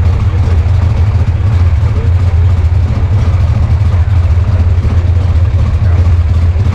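Chevrolet Opala Comodoro's 4.1-litre inline-six, naturally aspirated and modified, idling steadily with a loud, low exhaust note.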